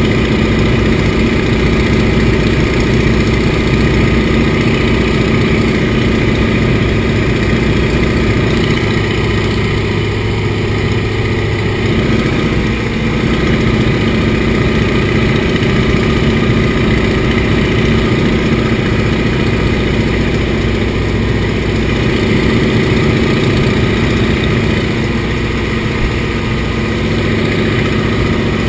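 Antonov An-2's nine-cylinder Shvetsov ASh-62IR radial engine and propeller running steadily in flight, heard inside the cockpit as a loud, even drone.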